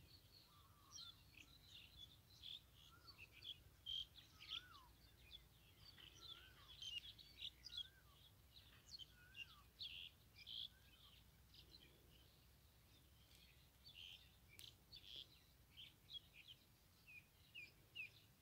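Faint calls of small wild birds: many short, high chirps throughout, with a few lower whistled up-and-down notes in the first half.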